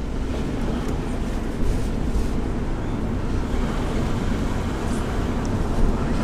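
A car driving along a road, heard from inside: steady engine and tyre noise.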